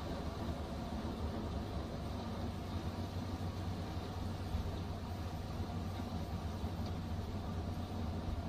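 Snowplow truck's engine running steadily under load as its front plow blade pushes through a roadside snowbank, a continuous low rumble with a rushing noise over it.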